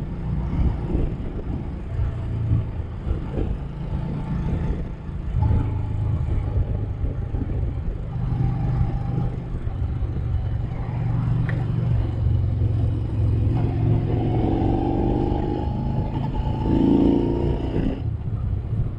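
Motorcycle riding at road speed, heard through a microphone taped inside the helmet: a steady low rumble of engine and wind. About three quarters of the way through, a whine rises in pitch as the bike accelerates.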